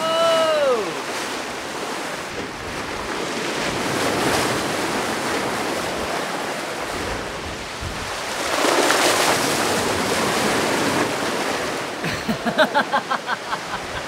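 Sea rushing and splashing along the hull of a sailing catamaran running fast through big waves, with wind buffeting the microphone; the rush swells loudest about nine seconds in. A voice cries "whoa" at the very start, and a quick run of short voiced sounds comes near the end.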